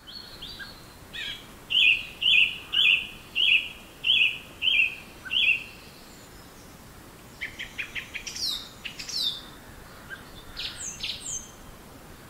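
A songbird singing: one clear, falling whistled note repeated about eight times in a steady series, then a burst of quick chirps and a few high falling notes. Faint steady background noise runs underneath.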